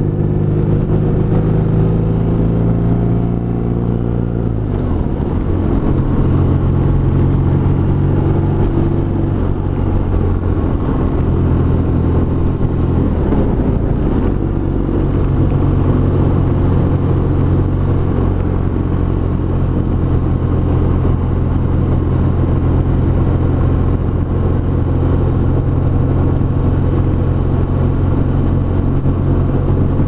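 BMW R nineT Racer's 1170 cc air/oil-cooled boxer twin running under way at moderate revs, a steady low drone. The engine note changes about four seconds in and again around thirteen seconds, as the throttle or gear changes.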